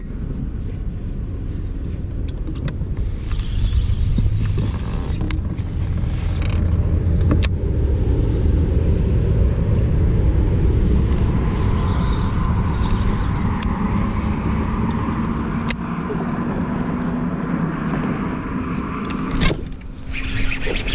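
A steady low rumble with a motor hum, typical of a bass boat's electric trolling motor working along the bank. The hum is strongest in the second half and drops away just before the end, and a few sharp clicks stand out.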